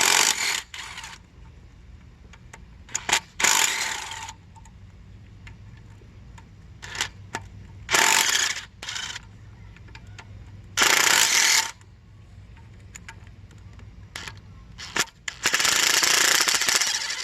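Impact wrench running in short bursts of about a second, five times, as it backs out the rocker arm bolts on a 6.7 Powerstroke diesel's cylinder head, with light clicks of tools and parts in between.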